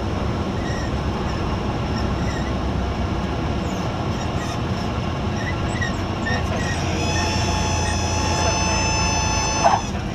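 Cessna 172 in the landing flare: the idling engine and airflow rumble steadily, and about seven seconds in the reed-type stall warning horn sounds a steady, reedy tone for about three seconds as the airspeed bleeds off toward the stall. The horn ends with a short sharp chirp near the end.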